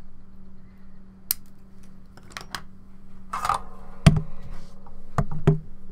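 Small wire cutters snipping thin ESC ground and signal wires to length: a few sharp, separate clicks, with a brief clatter of tools being handled about halfway through. A steady low hum runs underneath.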